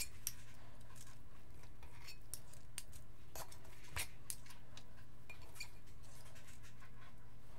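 Metal spoons clinking and scraping against a glass mixing bowl while cookie dough is scooped out, a scattering of light irregular clicks over a steady low hum.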